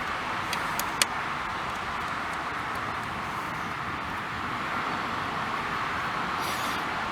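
Steady background noise like distant road traffic, with two light clicks about half a second and a second in.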